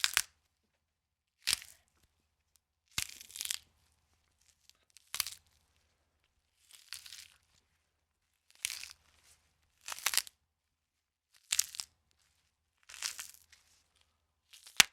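Bone-cracking sound effect: about ten short, crunchy cracks spaced roughly every one and a half seconds. Some are single sharp snaps and others are brief crackling clusters about half a second long.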